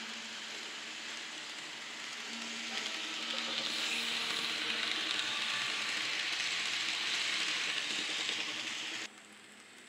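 N scale model Amtrak RTL Turboliner running close by on its track: a steady hiss of wheels and motor that grows louder about three seconds in and cuts off suddenly near the end.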